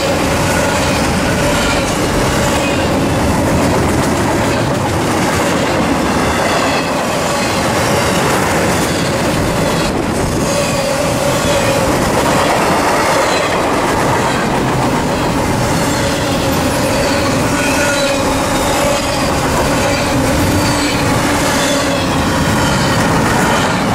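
Intermodal freight train cars passing, loud and steady: steel wheels rolling over the rails, with a steady squeal from the wheels.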